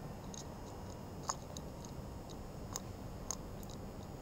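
Cat eating from a ceramic bowl: scattered small clicks and crunches, three of them sharper, from about a second in, over steady low background noise.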